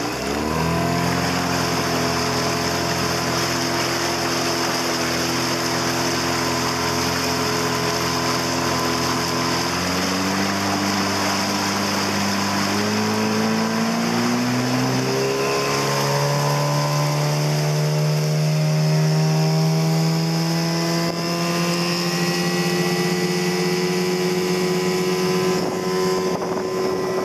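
1999 Mariner 15 hp short-shaft outboard driving a small dory, with water and wind rushing past. The throttle opens just at the start and the engine holds a steady note; from about ten seconds in the revs climb in steps, reaching a steady higher pitch by about sixteen seconds.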